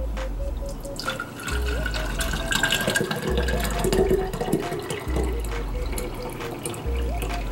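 Thick vegetable juice (apple, celery and carrot) pouring from a plastic juicer pitcher through a small mesh strainer into a glass jar, starting about a second in. Background music with a steady low beat plays under it.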